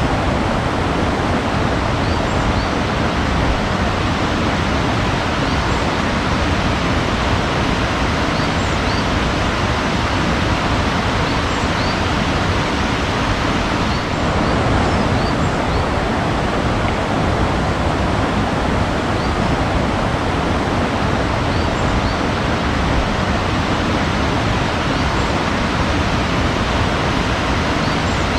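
Steady rushing water, like a waterfall or fast stream, with faint short high bird chirps every second or two.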